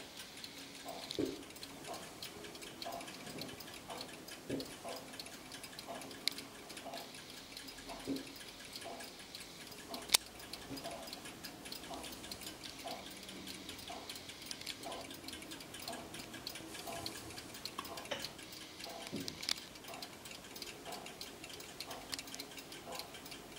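Antique clocks ticking in overlapping rhythms, among them a small Zappler clock with a mother-of-pearl case and a short, fast pendulum, its quick light ticking over the slower ticks of the other clocks. A single sharp click about ten seconds in.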